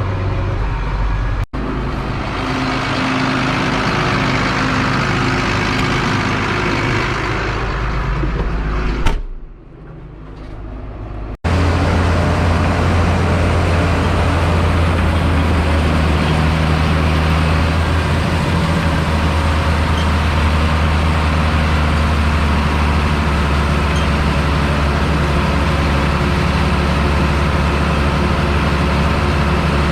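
Heavy farm vehicle's engine running steadily with a low hum, in several cut-together clips; the sound drops and dulls for a couple of seconds around nine to eleven seconds in, then the hum returns steady and stronger.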